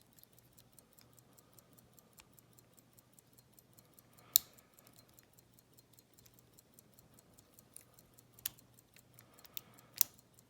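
Lock pick working the pin stack of a Schlage padlock under light tension: faint rapid ticking of the pick on the pins, with a few sharp clicks, the loudest about four seconds in and several more near the end.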